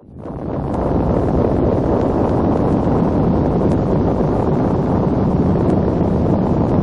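Steady low rushing noise like wind, swelling up from silence within the first second and then holding even.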